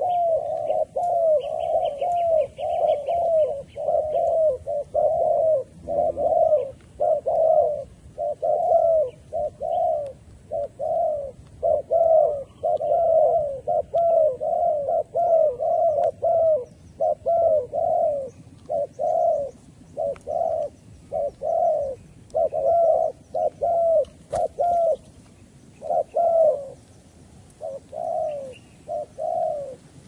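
Spotted doves cooing in a long, rapid run of short coos, a few to the second, with only brief gaps in the second half. This is a decoy calling to lure wild doves down. A small bird chirps faintly near the start.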